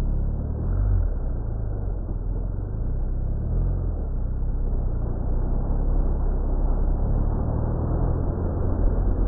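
Steady low rumble of a running vehicle engine with road and wind noise, picked up by an action camera's microphone. The engine note shifts slightly in pitch a few times.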